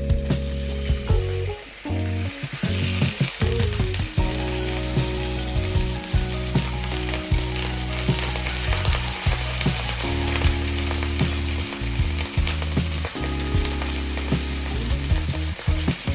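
Food sizzling as it fries in a pan, the hiss setting in about three seconds in and continuing, with occasional short clicks. Background music with a bass line plays underneath.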